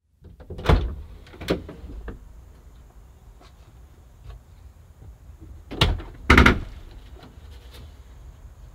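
Cargo van's rear doors being unlatched and swung open: a sharp clunk and a second knock in the first couple of seconds, quieter rattles, then two more loud knocks about six seconds in.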